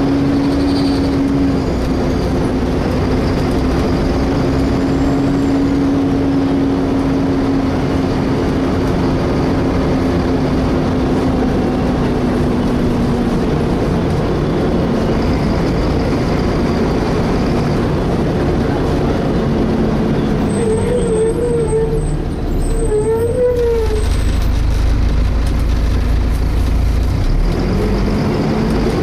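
Volvo B7TL bus on the move, heard from inside: engine and cooling fan running with a steady whine over a low rumble. The whine holds, then sinks lower about two-thirds through and climbs again near the end as the bus changes speed. About three-quarters through there is a short wavering squeal.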